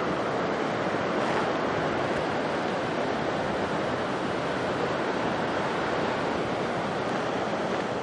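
Dettifoss waterfall: a massive volume of water pouring over the falls, a steady, even rushing roar.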